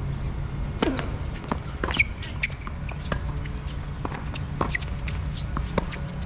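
Tennis serve and the rally after it: sharp pops of racket strings on the ball and of the ball bouncing on the hard court, a second or more apart, the loudest about two seconds in. Short high squeaks and chirps sit between the hits, over a steady low rumble.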